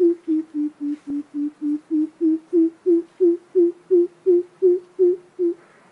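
Coucal calling: a long run of deep, hollow hoots, about three a second, dipping slightly in pitch and then rising again, stopping shortly before the end.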